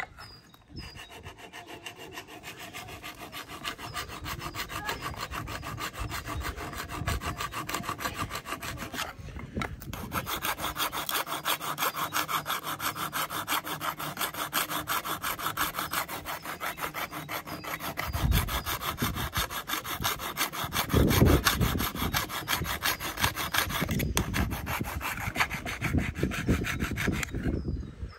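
Saw cutting into wood in quick, steady back-and-forth strokes, pausing briefly twice, with a few heavier knocks in the second half.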